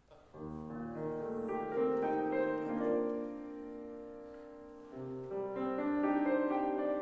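Grand piano playing held chords, starting about a third of a second in, with a new chord struck about five seconds in.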